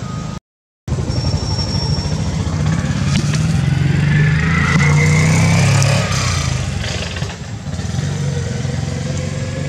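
A motor vehicle's engine running nearby, growing louder to a peak about halfway through and then easing off, as if going past. The sound drops out completely for about half a second near the start.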